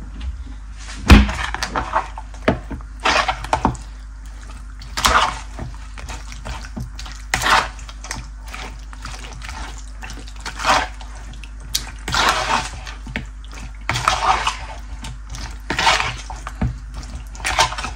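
Raw chicken wings being stirred with a spoon in a plastic bowl through a wet marinade of yogurt, lemon juice, olive oil and spices: wet squelching strokes every second or two, with a sharp knock about a second in.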